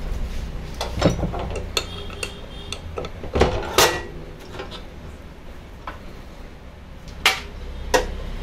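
Sharp metallic clicks and clinks, about half a dozen, the loudest about three and a half seconds in: an L-shaped hex key working the arbor bolt of a Bosch GCO 220 cut-off machine, with the spindle locked, as the abrasive cut-off wheel is tightened onto its flange.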